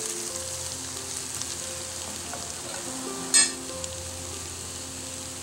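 Okra and grated coconut sizzling as they fry in a steel pan, stirred with a metal spatula, with one short scrape of the spatula against the pan about three and a half seconds in.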